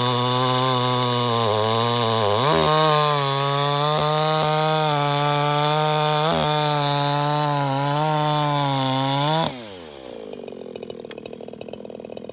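Chainsaw running at full throttle, cutting cookies (thin slices) from a log, its pitch sagging and recovering under load with a brief dip about two and a half seconds in. Near the end the throttle is released and the engine drops to a quieter idle.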